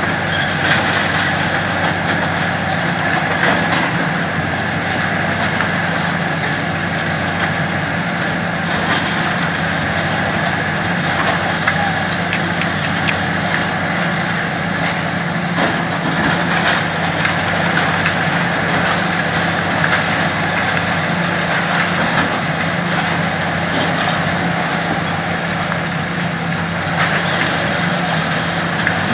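High-reach demolition excavator's diesel engine running steadily as it breaks down a concrete building, with a few scattered knocks and clatter of concrete debris.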